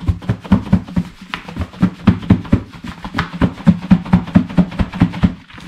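Plastic batter-shaker container being shaken by hand, the fish chunks and breading inside knocking against its walls and lid in a quick, even rattle of about four to five knocks a second.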